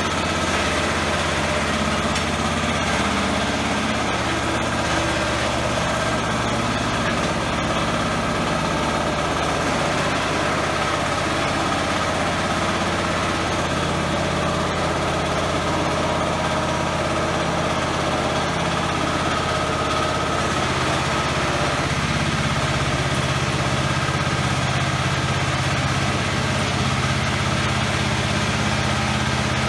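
Engine of a 4LZ-1.0 mini tracked rice combine harvester running steadily while the machine is driven. Its note shifts slightly about halfway through.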